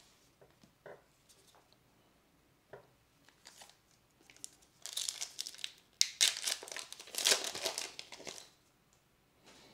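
A 2020 Topps Gypsy Queen baseball card pack's wrapper being torn open and crinkled: a few faint taps of cards set down, then loud crinkling from about five seconds in that lasts a few seconds.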